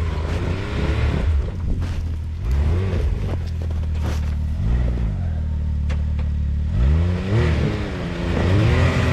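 Can-Am Maverick X3's turbocharged three-cylinder engine running, its pitch rising and falling with the throttle several times, most of all in the last couple of seconds.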